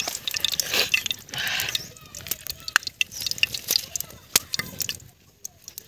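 Open wood fire of sticks and dry leaves crackling under a wok of heating oil: scattered sharp pops and snaps with a couple of brief hisses early on, dying down about five seconds in.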